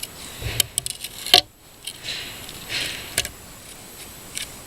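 Handling of metal tools and pallet wood: a low thump, then several sharp metallic clicks and knocks, the loudest about a second and a half in, with short scraping rustles between them.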